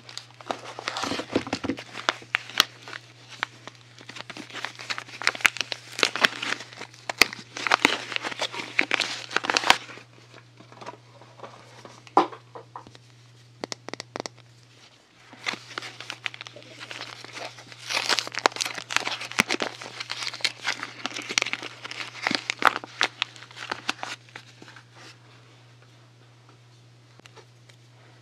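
Soap packaging being unwrapped by hand: crinkling and crackling in two long bouts, with a short pause between.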